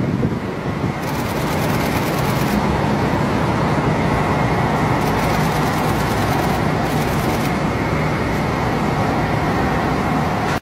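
Steady city street noise: a continuous rumble and hiss of traffic.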